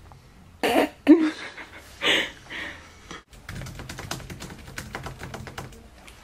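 A man coughs and clears his throat a few times. Then, about three seconds in, fast typing on a laptop keyboard starts: a quick, even patter of key clicks.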